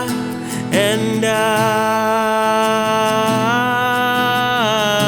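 Worship song: a solo singer holds a long note with vibrato over a strummed acoustic guitar. The note steps up in pitch about three and a half seconds in and drops back near the end.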